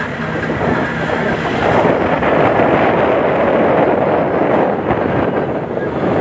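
Wind rushing over the microphone of a moving vehicle, with the vehicle's engine and road noise beneath; it grows louder about two seconds in.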